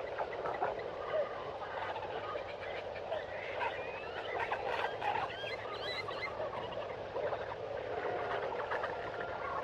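A chorus of many overlapping animal calls: chirps, short whistles and brief rising and falling notes, all layered over one another.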